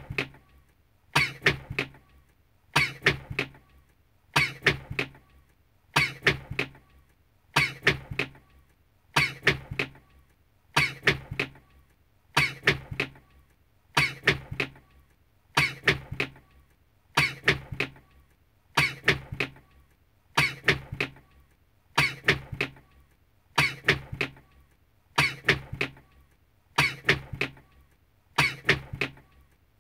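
A man's sneeze, one short recording repeated in a loop. It comes about every second and a half, each repeat a quick cluster of sharp bursts with a short gap of quiet before the next.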